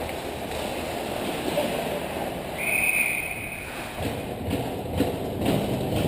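A referee's whistle gives one steady blast of about a second, starting about two and a half seconds in, over the rink noise of skates and sticks on the ice with a few short knocks.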